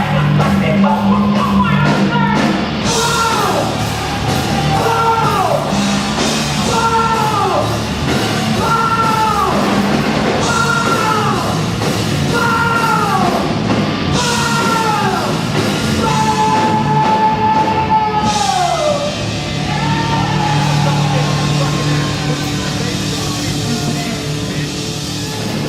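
Loud live rock music from a band, with a short falling phrase repeated about once a second and one longer held note that slides down near the end.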